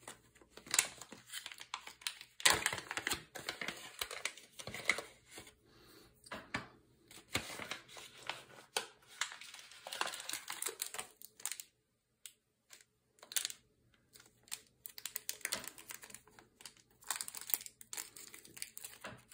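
Small plastic parts bag crinkling as it is handled and opened, on and off with light clicks and taps, and a short pause midway.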